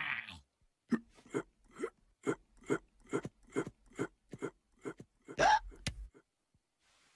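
Cartoon footsteps, an even run of short steps about two and a half a second, as characters walk down a slope. They are followed about five and a half seconds in by a louder, longer sound that falls in pitch.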